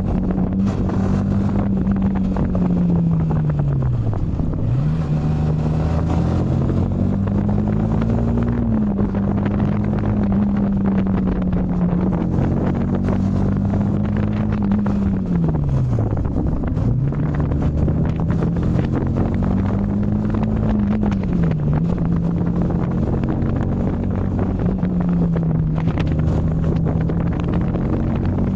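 Yamaha MT-15's single-cylinder engine running under way, its pitch rising and falling with the throttle. Twice, about 4 and 16 seconds in, the note sinks low and then jumps back up.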